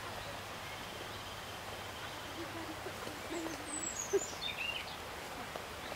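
A few faint, low, wavering hooting calls from an animal a little past the middle, with a thin falling whistle from a bird at about the same time, over a steady outdoor background hiss.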